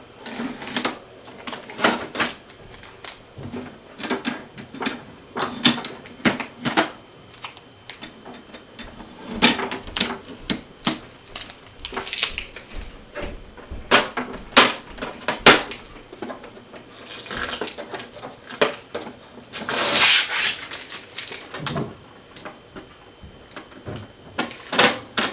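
Shipping tape being peeled off a new plastic inkjet printer, with irregular clicks and taps of hands on the plastic casing and a few short ripping rasps, the longest about three quarters of the way through.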